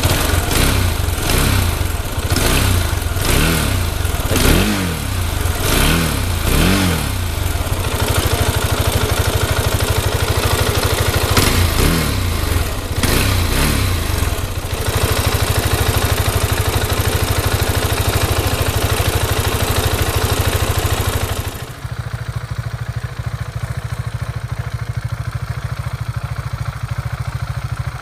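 KTM 690 Duke's single-cylinder engine through an aftermarket exhaust, revved in a string of quick blips, then running steadily with a few more blips. Well into the clip the sound abruptly turns duller, losing its hiss, while the engine keeps idling.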